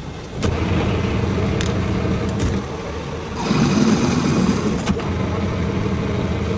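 Lathe machine running: its motor and drive start up suddenly about half a second in and run steadily. About three and a half seconds in, a louder sound with high, steady ringing tones joins.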